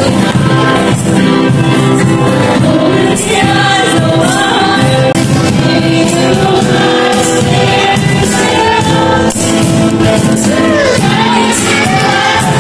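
Upbeat song with singing over a steady beat.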